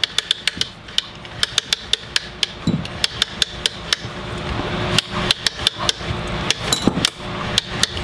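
Barnett crossbow crank cocking device being wound by its handle, clicking quickly and steadily as it draws the string back toward cock.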